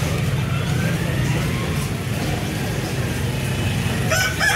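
Steady low engine rumble of road traffic. Near the end a rooster starts to crow.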